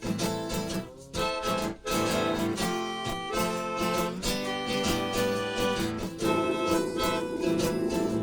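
Acoustic guitar playing an instrumental passage of a song, with steady sustained notes and no singing.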